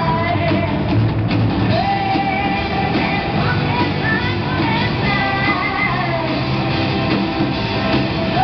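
Live rock band playing: a woman sings long held notes into a microphone over electric guitars and drums, amplified through PA speakers.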